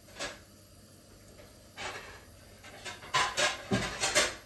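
Short scraping and knocking handling sounds from fetching plates: a couple of single scrapes, then a quick run of louder clatters with a dull knock near the end.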